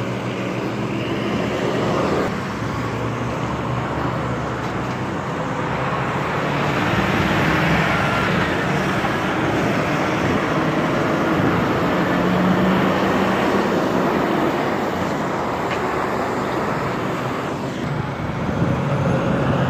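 Road traffic going by: engines and tyres of cars and trucks, with a low engine hum, swelling and fading as vehicles pass.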